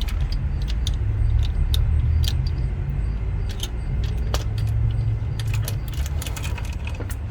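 Light metallic clinks and rattles as a timing chain and its tensioner are worked off a Ford 5.4 V8 engine, over a steady low rumble.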